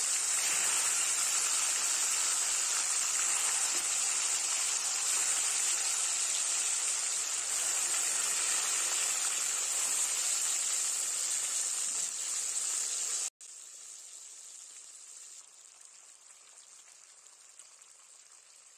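Rui fish pieces sizzling as they fry in hot mustard oil in a kadai: a steady, loud hiss of frying. About two-thirds of the way through it cuts off abruptly, leaving only a much fainter sizzle.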